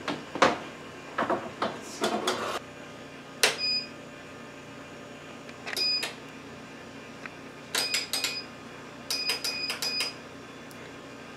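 Trays knocking and rattling as they slide into a Cabela's food dehydrator. Then its control panel beeps as the buttons are pressed to set temperature and timer: single beeps and quick runs of several.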